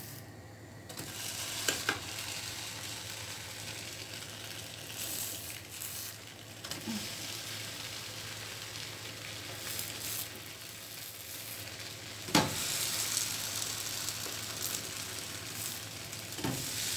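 Pancake batter sizzling in a four-cup pancake pan over a gas flame turned up too high, the pancakes scorching underneath. A sharp knock comes about twelve seconds in and a lighter one near the end.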